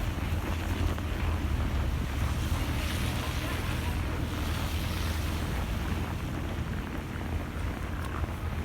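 Wind buffeting the microphone during a snowstorm: a steady low rumble under a rushing hiss.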